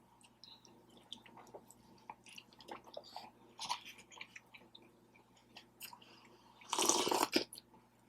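A person chewing birria tacos close to the microphone: soft wet smacks and small mouth clicks. About seven seconds in comes a louder burst of noise lasting under a second.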